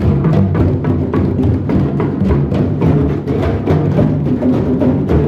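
A drum circle: many hand drums played together in a dense, steady rhythm of overlapping strokes.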